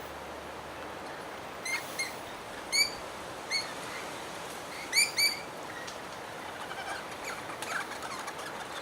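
Birds calling: about six short, sharp chirps, some in quick pairs, followed by fainter twittering near the end, over a steady background hiss.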